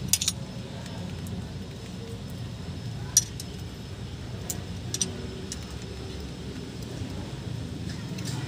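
Steel hand tools clinking on the valve gear while the valve clearance is adjusted on a Kia Bongo JT 3.0 engine: a ring wrench and screwdriver on a rocker arm's adjusting screw and locknut. There are a few sharp clinks: a quick cluster at the start, the loudest about three seconds in, and another about five seconds in. A steady low hum sits underneath.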